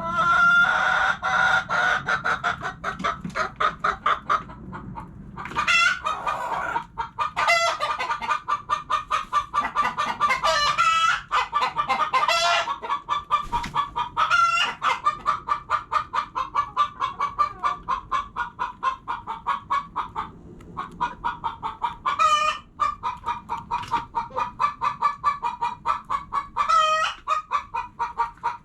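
Hens clucking in a fast, steady run of short clucks, with louder, higher calls breaking in every few seconds.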